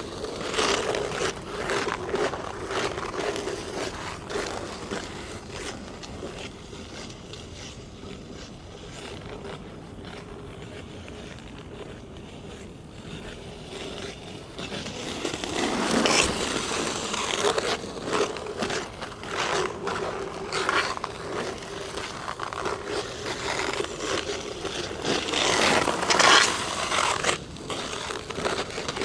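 Ice skate blades scraping and cutting across hard natural black ice in rhythmic strokes. The strokes are fainter through the middle and grow loud twice, a little past halfway and again near the end, as skaters pass close.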